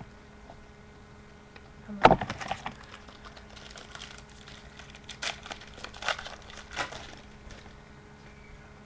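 Foil trading-card pack wrapper torn open with one sharp rip about two seconds in, followed by crinkling. Three shorter rustles follow as the wrapper and cards are handled.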